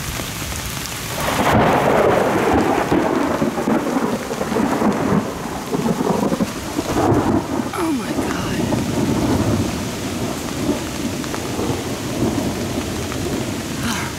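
Thunder rumbling in several rolling waves over steady rain. The rumble swells about a second and a half in and rises and falls repeatedly.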